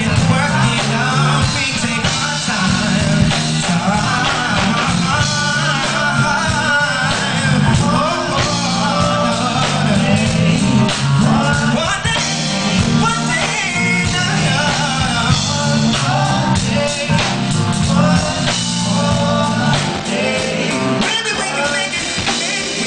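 Male R&B singer singing lead over a live band with drums and bass, in a live concert mix.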